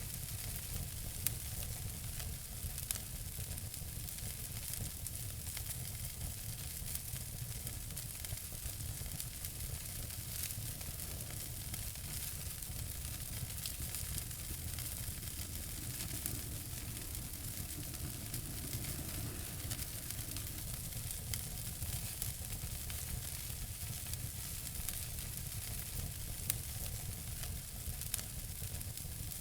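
Wood fire burning in a fireplace: a steady hiss and low rumble of flames with scattered sharp crackles and pops.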